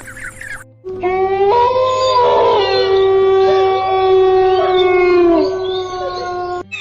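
Several dogs howling together, their long, steady howls overlapping on different pitches for about six seconds.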